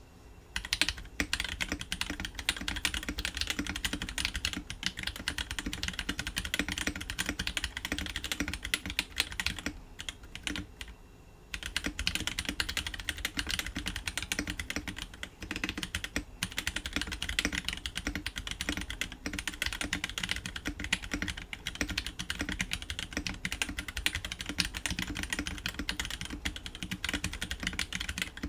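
Continuous fast typing on a Novelkeys NK87 mechanical keyboard. Its SP Star Magic Girl tactile switches are lubed and fitted with 50g springs, set in a polycarbonate plate with silicone dampening in the plate and case. A dense, irregular run of key presses breaks off in a short pause about ten seconds in.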